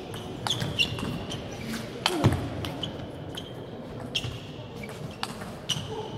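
Table tennis rally: the celluloid-type plastic ball clicking sharply off rackets and the table in quick, uneven succession, several hits a second.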